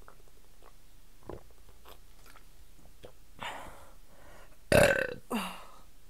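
A woman swallowing water quietly, then burping loudly near the end, followed at once by a second, shorter burp that falls in pitch: air swallowed while chugging bottled water.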